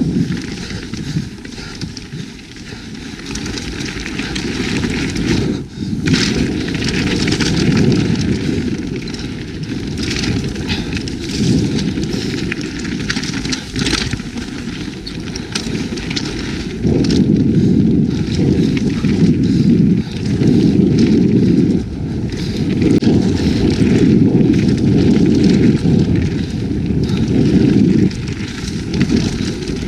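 Wind buffeting the action-camera microphone as a mountain bike rolls fast down a dirt trail, with the rumble swelling and easing with speed and scattered clicks and knocks from the tyres and bike over rough ground.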